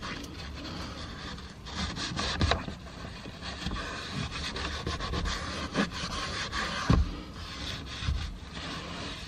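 Dry paper napkin rubbed back and forth over a car's interior door panel, drying the surface after cleaning so double-sided tape will stick. A continuous scrubbing with a few light knocks.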